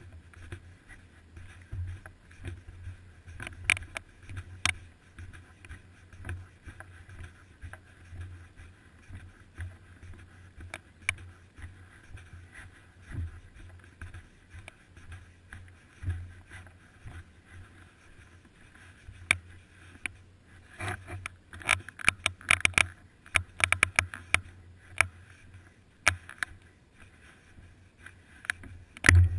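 Bicycle riding over city pavement, heard through a seat-post-mounted GoPro Hero 2: a steady low hum with scattered clicks and rattles from bumps in the road, coming thick and fast about two-thirds of the way through and ending with a sharp knock.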